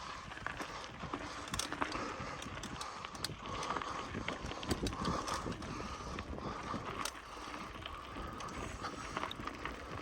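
Bicycle riding over rough dirt ground: a dense run of small clicks and rattles from the bike, with the freewheel ticking.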